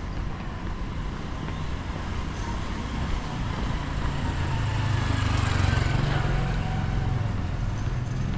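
A motor vehicle drives past on the street, its engine and tyre noise swelling to a peak a little past halfway and then fading, over steady city street noise.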